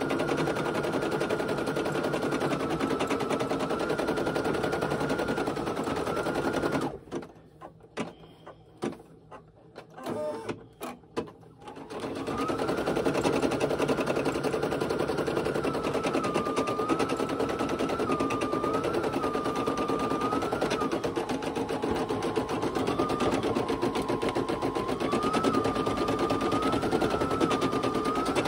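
Brother PE800 embroidery machine stitching, a rapid needle rattle with a motor whine that shifts up and down in pitch. About seven seconds in it stops for some five seconds, with only a few faint clicks, then starts stitching again.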